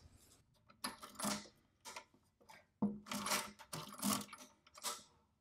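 Brunsviga hand-cranked mechanical calculators being turned, first the earlier black Model 10 and then the Nova 10: about four short bursts of clicking and clattering from the crank and gear mechanism.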